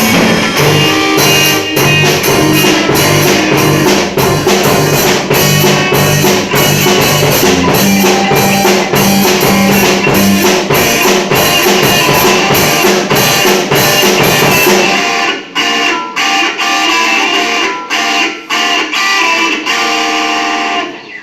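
Music with a steady drum beat and a bass line. About fifteen seconds in, the drums and bass drop out and a lighter part plays on, ending just before the end.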